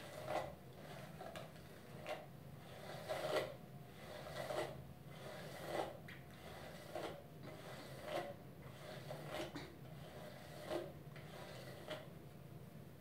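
A hairbrush drawn through long hair again and again, about ten short rasping strokes a little over a second apart, working tangles out.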